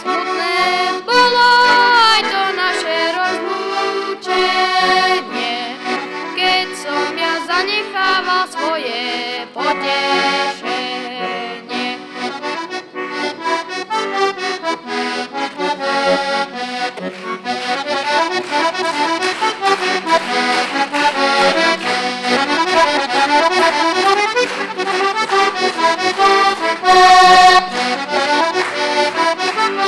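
Solo accordion playing an instrumental folk-tune interlude: quick runs of melody over a steady accompaniment, with a louder held chord near the end.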